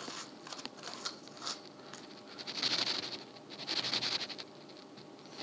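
A metal-nibbed pen scraping over paper and scattered iron filings, in two short scratchy strokes about two and a half and three and a half seconds in.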